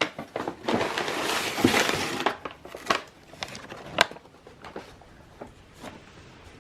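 Packing material rustling and crinkling as a shipping box is unpacked, with sharp knocks and taps. The rustling is densest for the first two seconds, then gives way to occasional quieter taps.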